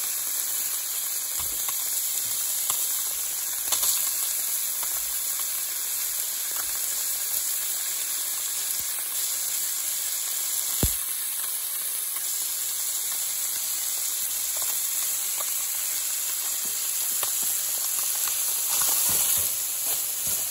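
Onions frying in olive oil in a skillet, sizzling steadily as crumbled silken extra firm tofu is dropped in by hand, with scattered small pops and one sharp click about halfway. Near the end a spatula starts stirring the pan.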